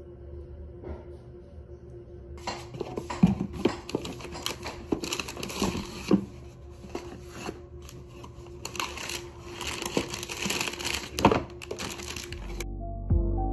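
Paper and cardboard packing rustling and crinkling as it is handled: white tissue paper pulled back and cardboard inserts shifted, with sharp clicks and knocks among the rustle. Music comes in near the end.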